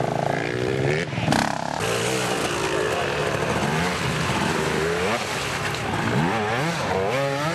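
Dirt bike engines revving, pitch rising and falling with the throttle, with a brief rush of noise about a second and a half in.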